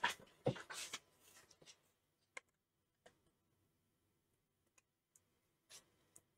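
Handling rustle, then a few faint, sharp clicks about a second apart as a screwdriver tip presses the metal crimp tabs of an engine control unit's metal housing closed over its freshly sealed lid.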